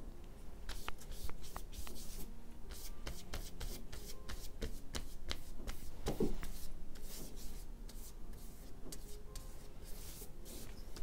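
A wide flat brush stroking and scrubbing watercolour across textured watercolour paper in a run of short scratchy strokes, with a louder soft thump about six seconds in.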